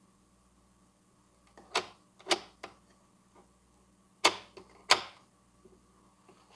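Sharp clicks and knocks, about five loud ones in two pairs, from hands working at a record player's turntable motor and mechanism. The motor has voltage but does not turn, typical of a seized motor. A faint steady electrical hum sits underneath.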